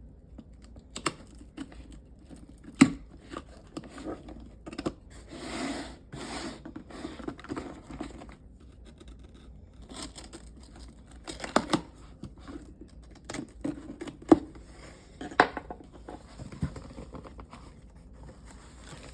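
A shipping package being torn open by hand, with paper and packaging tearing and crinkling in irregular rustles and sharp snaps.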